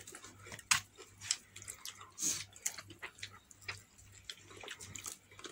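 Close-up eating sounds from fried chicken picked apart by hand: wet chewing and lip smacks with irregular small clicks and crackles.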